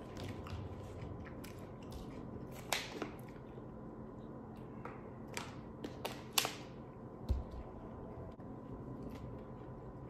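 Quiet eating and handling sounds: soft chewing and a few sharp crackles of a thin plastic water bottle being handled and uncapped, the loudest crackles a little past halfway.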